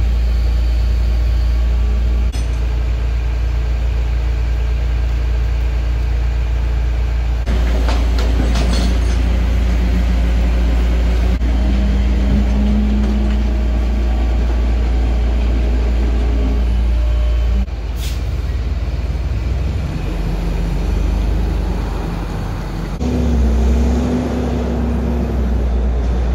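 Flatbed tow truck's engine running steadily while a stripped car body is winched up onto its tilted bed, with clanking and rattling from about seven seconds in. After about eighteen seconds the sound changes, and near the end the engine note rises as the truck pulls away.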